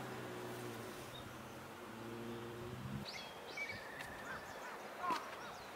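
A steady low hum that stops abruptly about three seconds in, followed by birds chirping several times in short, curved calls.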